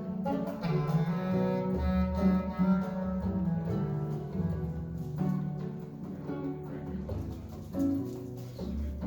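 Recorded music with a strong bass line, played from vinyl through a pair of Fleetwood Sound DeVille horn loudspeakers.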